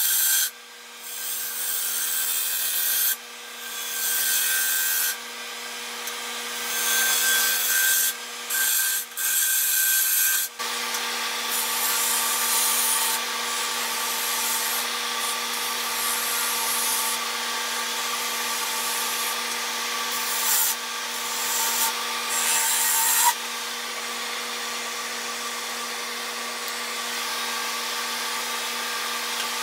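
A turning gouge cutting a spinning cherry-wood blank on a wood lathe, a hissing scrape of shavings coming off. In the first ten seconds it comes in several short cuts, then it runs on almost continuously, over a steady machine hum.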